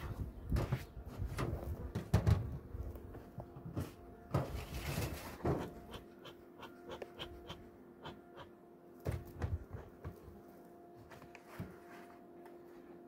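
Irregular knocks and rustling of handling close to the microphone, busiest in the first half, over a faint steady hum.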